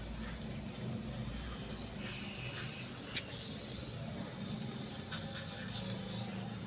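Steady hiss of a dosa cooking on a hot iron tawa over a gas burner, with a low steady hum underneath and a few faint ticks.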